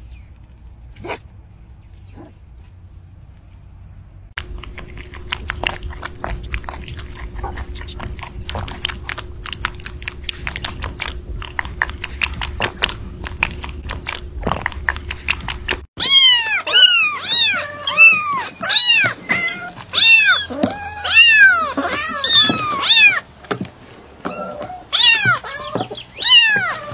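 Rapid, crisp chewing clicks from a rabbit biting into strawberries, then over the last ten seconds a kitten meowing over and over in loud, high mews that rise and fall.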